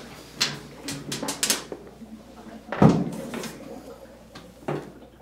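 A top-load washing machine's sheet-metal cabinet being tipped over onto its front by hand: a series of knocks and rattles, with a heavy thump a little under three seconds in.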